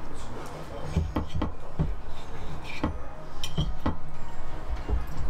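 Knife and fork clicking and scraping against a plate while cutting roast beef. About eight short sharp clinks come at irregular intervals.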